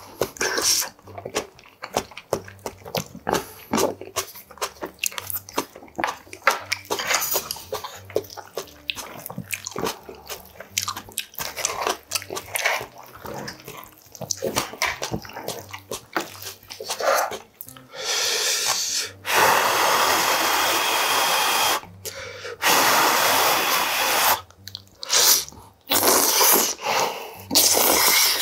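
Close-miked eating sounds: wet chewing and smacking with light clicks of chopsticks and a wooden spoon. About two-thirds of the way in, several long, loud slurps of ramen noodles from spicy stir-fried budae bokkeum follow, each one to three seconds.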